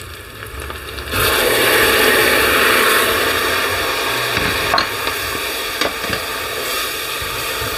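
Water rinsed from a plate of powdered spices into hot oil and fried onions hits with a sudden loud sizzle about a second in. The sizzle keeps going and slowly eases while the masala is stirred and fried with a spatula.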